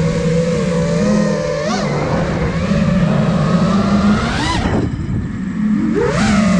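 Motors of a 5-inch FPV quadcopter (iFlight Nazgul Evoque F5) whining in flight, the pitch wavering with throttle. Two throttle punches rise sharply, about two seconds in and again near four and a half seconds; the whine then drops away as the throttle is cut, and it climbs again near the end.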